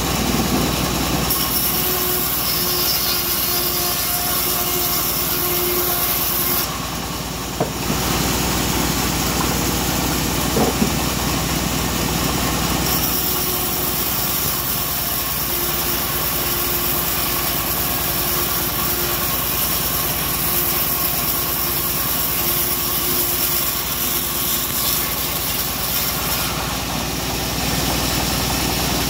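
Homemade bandsaw sawmill running steadily while its blade cuts lengthwise through mahogany, a high hiss that lasts through two long cuts, the second starting about halfway through.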